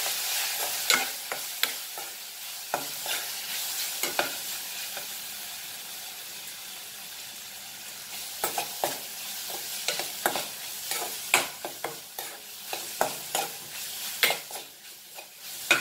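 Onions, tomatoes and spice powders sizzling as they fry in oil in a kadai, stirred with a metal spoon. The spoon scrapes and clicks against the pan at irregular moments.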